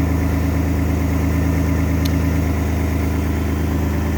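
2010 Dodge Journey's V6 engine idling steadily, just after being started.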